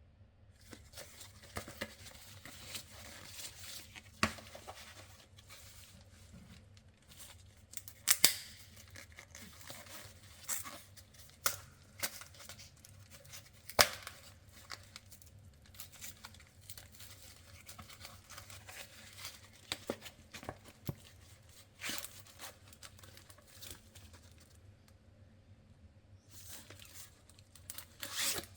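Paper and foil wrapper of a chocolate bar being torn open and crinkled, an ongoing rustle broken by sharp crackles and clicks, the loudest about 8 and 14 seconds in.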